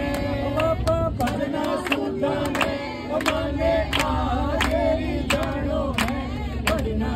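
A group of men and women singing a Hindu devotional bhajan together, clapping their hands in time at about two claps a second.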